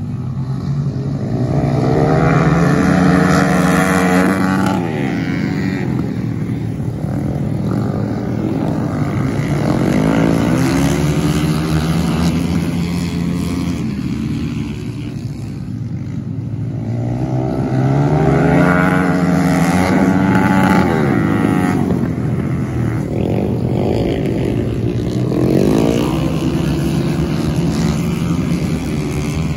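450-class dirt-track racing motorcycle engines revving around a dirt oval, their pitch rising as they accelerate and falling as they back off. The sound swells loudest twice as the bikes pass close by, with smaller swells in between.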